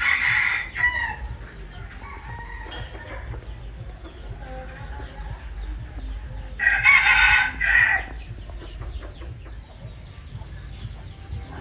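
A rooster crowing twice: a short crow in the first second, then a longer, louder crow of about a second and a half starting some six and a half seconds in.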